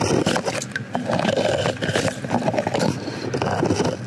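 Metal ice scoop scraping and stirring slush and broken ice in an ice-fishing hole, with irregular scrapes and splashes of water as the thin overnight ice is cleared.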